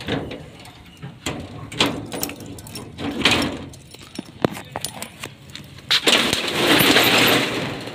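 Metal clicks and clanks of a padlock being handled on a shop's rolling steel shutter, then a loud scraping rattle about six seconds in that lasts around two seconds.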